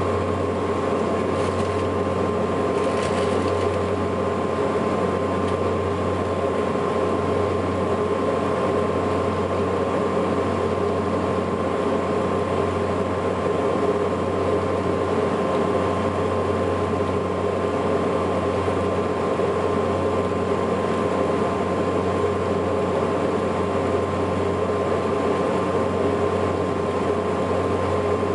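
Steady cabin drone of a Saab 340B's twin General Electric CT7-9B turboprops and propellers during descent for landing, heard from inside the cabin beside the wing: a low propeller hum with a steady whine above it.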